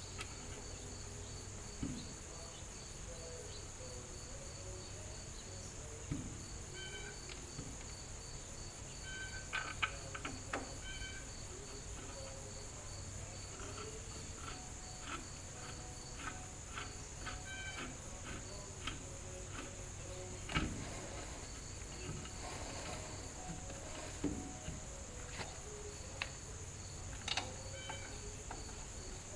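Insects chirping steadily outdoors in short pulsed trains over a constant high drone, with scattered sharp knocks every few seconds, the loudest about two-thirds of the way through.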